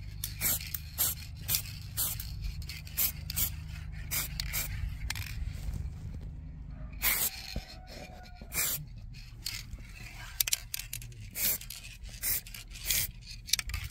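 Can of heat-resistant paint sprayed in many short, irregular bursts, over a steady low hum.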